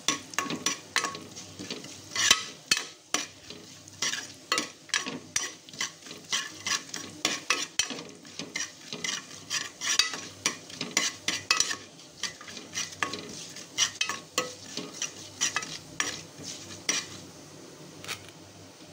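A ladle stirring and scraping around the base of a pressure cooker in a run of quick clicks and scrapes, over cumin, fennel and a cinnamon stick sizzling in hot oil as they are tempered. The stirring stops near the end, leaving only the sizzle.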